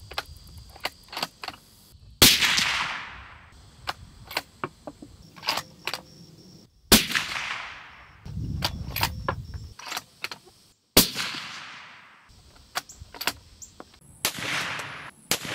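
Three suppressed rifle shots from a 7mm-08 Remington Ruger American Gen 2 with a 20-inch barrel, a few seconds apart, each followed by a long echo tail. Smaller clicks come between the shots, and another loud report with a fading tail arrives near the end.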